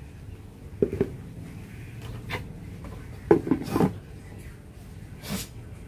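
A few short knocks and scrapes of a plastic bait tub and bucket being handled, the loudest cluster a little past halfway.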